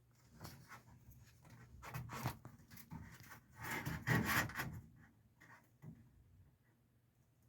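Irregular rubbing and scraping from hands working on the HVAC blower during cleaning, loudest about two seconds in and again about four seconds in, over a faint steady low hum.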